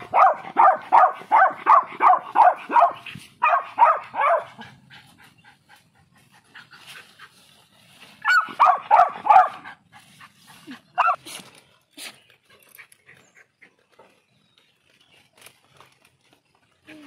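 Beagle puppy barking in quick runs of about three barks a second: a long first run of a dozen or so barks, a short burst, then after a lull another run and a couple of single barks.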